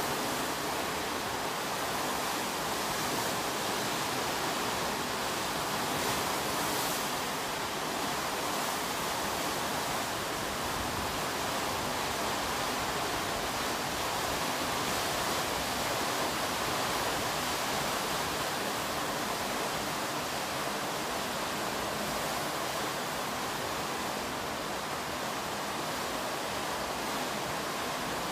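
A swollen, muddy river in flood rushing past: a steady, even rush of fast-moving water.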